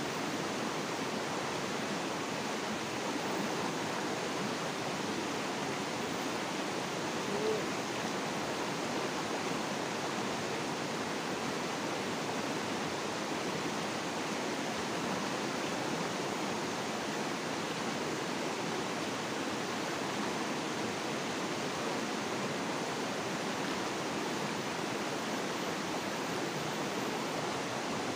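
A fast-flowing river running steadily over rocks in shallow rapids.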